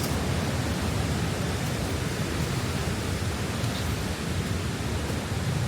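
Steady rushing noise of a waterfall, falling water heard close by.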